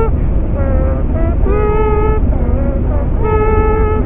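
Road and engine noise inside a moving car, a steady low rumble, with a slow tune of long held notes over it, each lasting up to about a second and changing pitch from note to note.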